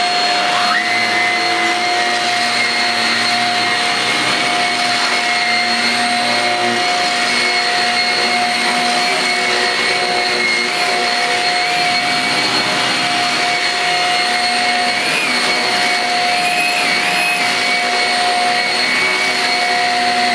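Shark Rocket corded stick vacuum running on its carpet setting, its motorised brush head working over carpet: a steady, loud, high whine that rises to full speed within the first second.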